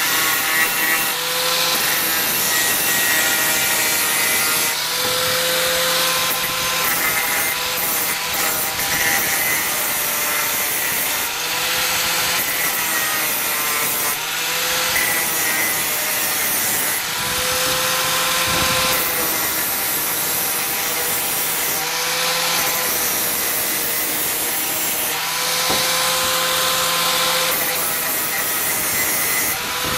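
Handheld electric angle grinder grinding rust off scrap steel to bare metal in repeated passes, preparing the spots that will be welded. Its motor whine swells back every few seconds between passes.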